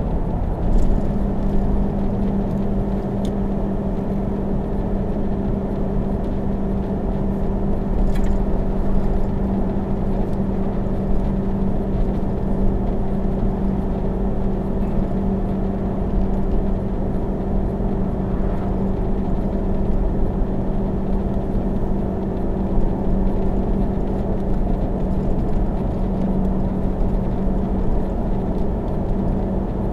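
A motor vehicle's engine drones steadily under load on a long uphill pull, heard inside the vehicle over continuous road and wind noise. The engine note steps up slightly about a second in, then holds.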